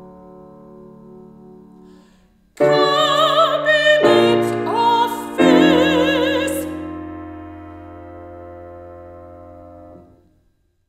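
Mezzo-soprano singing a loud final phrase with wide vibrato over piano chords, entering about two and a half seconds in after a soft held piano chord. The last piano chord is then held, fades over several seconds and stops near the end: the close of the song.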